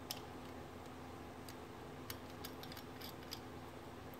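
Faint, irregular small clicks and ticks of fingers turning a knurled anti-rotation thumb screw into a nut grinder's metal front housing.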